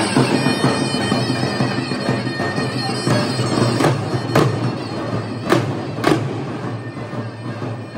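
Traditional wedding music: davul bass drums beaten with sticks under a shrill reed wind instrument playing a wavering melody over a steady drone. A few heavy drum strokes stand out in the middle, in pairs about half a second apart.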